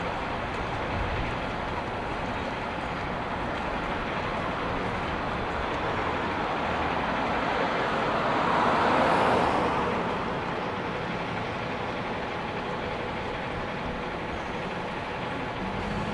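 City street traffic: a steady hum of passing cars and a bus, with one car passing close by and loudest about nine seconds in.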